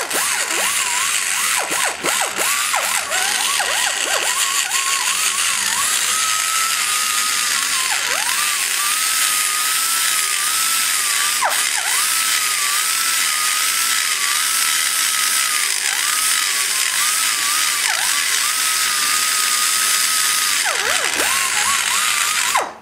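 Die grinder with a double-cut carbide burr grinding the exhaust valve bowl of a cast-iron small-block Chevy 186 cylinder head: a steady high whine over a hiss. The pitch dips briefly again and again as the burr bites into the metal, most often in the first few seconds and near the end. It cuts off suddenly at the end.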